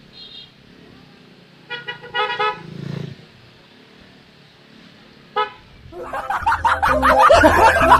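Vehicle horns tooting briefly a few times over a faint street hum: one short high toot at the start, a pair about two seconds in, and another near five seconds. About six seconds in, loud music with a heavy beat starts.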